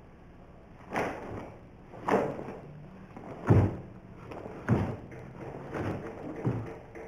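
Sharp thumps of a karateka's feet stamping and stepping during a Shotokan kata: six of them about a second apart, the two loudest and deepest about three and a half and nearly five seconds in.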